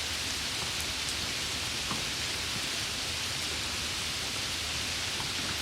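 Heavy rain falling steadily as an even hiss, with a few separate drops ticking through it.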